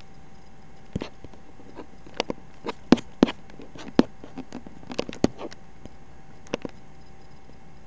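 Computer mouse button clicking, a dozen or so sharp clicks at an irregular pace, thickest and loudest from about two to five and a half seconds in, over a faint steady hum.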